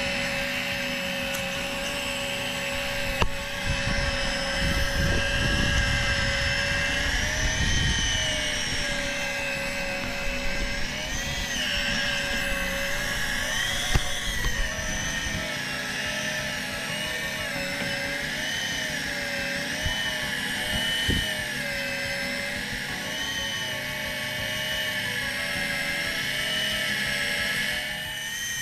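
Electric fishing reel's motor running steadily as it winds in line, its whine wavering slightly in pitch as the load changes. It starts just before and stops near the end.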